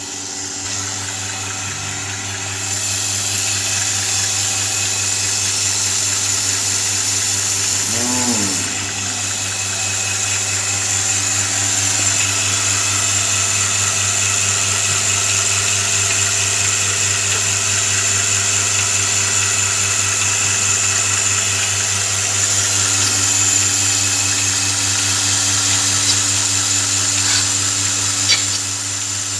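Electric milking machine's vacuum pump motor running with a steady, even hum, getting louder about two and a half seconds in. A brief falling pitched sound cuts across it about eight seconds in.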